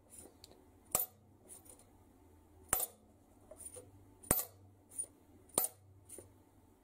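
Poppet valves in a Mercedes OM366 diesel cylinder head being lifted by hand and let fall back onto their seats, making a series of sharp metallic ticks a second or so apart. This is a drop test used to judge the valve-seat cut by ear: a clear ringing tick means a precisely cut seat, and a dull tick means an imperfectly cut one.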